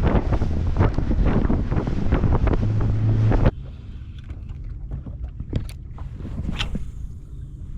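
Boat motor running under way, with heavy wind buffeting the microphone and a steady low hum. It cuts off abruptly about three and a half seconds in, leaving a much quieter background with a few faint ticks.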